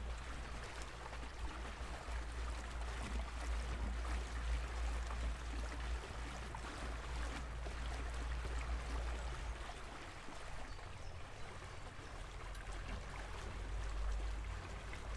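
Water gurgling and splashing against the hull of a small aluminium electric boat under way, over a steady low rumble.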